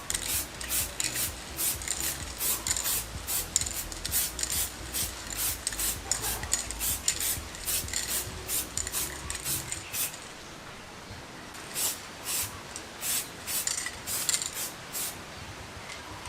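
Hand sanding of a motorcycle wheel hub: quick back-and-forth strokes of abrasive paper on metal at about three a second, pausing about ten seconds in and then starting again for a few more seconds.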